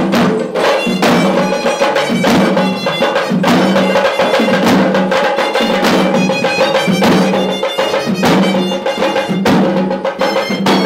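Hevisi ensemble playing: Sri Lankan drums beaten in a fast, dense rhythm, with a horanewa reed pipe playing held, reedy notes that step from pitch to pitch over the drumming.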